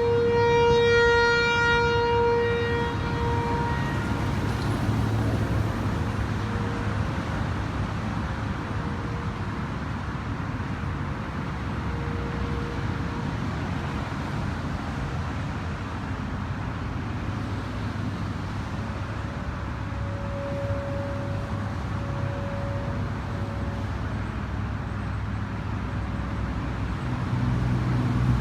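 ASC T-128 rotating outdoor warning siren sounding a steady tornado-warning tone. The tone is loud for the first few seconds, then fades and swells faintly a couple of times as the siren turns. Under it is a steady hiss and low rumble of traffic noise.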